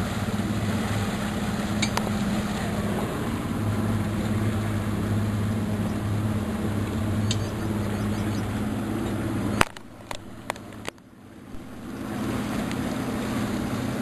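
Boat's motor running steadily at low speed, a low hum with water and wind noise over it. About two-thirds through, the sound drops away suddenly after a sharp click, then the hum builds back up a couple of seconds later.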